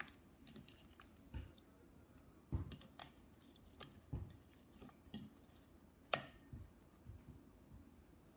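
Homemade slime being kneaded and mixed by hand: soft sticky squelches and small clicks at irregular intervals, with a few louder low thumps.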